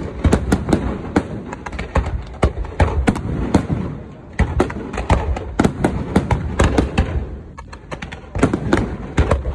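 Aerial firework shells bursting in a dense barrage, many sharp bangs a second, with short lulls about four seconds in and again near the end.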